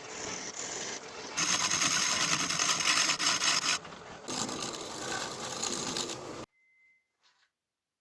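A tool or abrasive working on wood, making a steady scraping noise in two long loud stretches with a short dip between them, then cutting off abruptly about six and a half seconds in.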